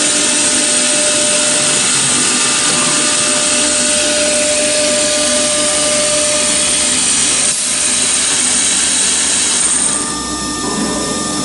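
CNC router running while machining foam: a steady rushing noise with a high whine on top. The whine stops about ten seconds in, and the sound gets a little quieter.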